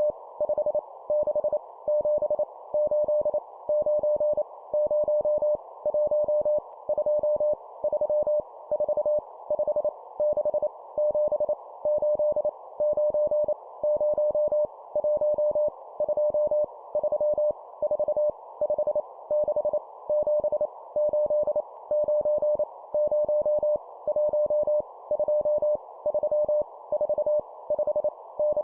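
Morse code (CW) sent at 25 words per minute as groups of numbers: a single steady beep keyed on and off in quick dots and dashes, over a narrow band of steady hiss.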